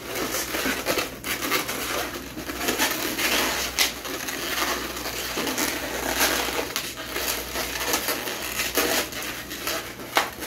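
Latex twisting balloons squeaking and rubbing against each other as they are twisted and locked together into a balloon shape, an irregular run of squeaks and scratchy rubbing with sharp squeals here and there.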